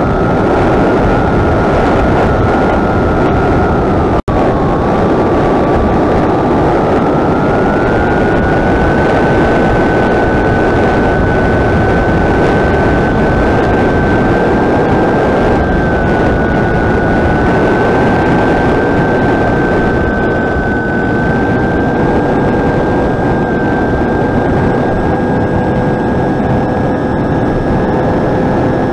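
Electric motor and propeller of a flying wing whining steadily in flight, with heavy wind rush over the onboard microphone. The motor's pitch dips about four seconds in, where the sound cuts out for an instant, then climbs and holds a little higher for the rest of the flight.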